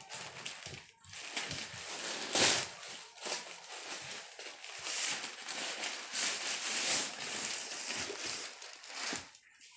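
A black plastic mailer bag rustling and crinkling in a series of irregular handling noises as a large flat sheet is pulled out of it. The loudest crinkle comes a little over two seconds in.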